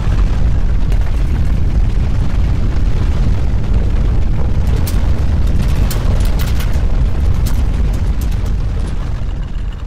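Deep, continuous rumble of strong earthquake shaking picked up by a live camera's microphone. In the middle come bursts of rattling and clattering, and the rumble fades near the end.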